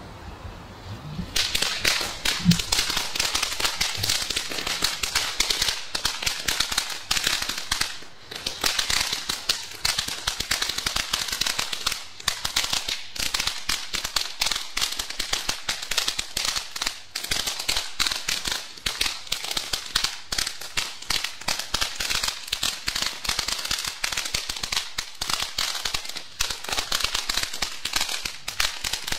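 Ground fountain firework catching about a second in, then spraying sparks with a steady hiss and dense, rapid crackling.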